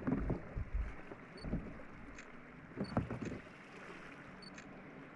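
Water splashing and sloshing around a sea kayak as it is paddled, in a few irregular bursts over the first three seconds or so, over a steady hiss of sea and wind.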